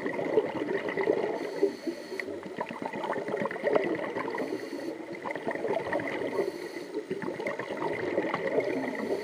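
Scuba regulator exhaust bubbles gurgling and crackling, heard underwater.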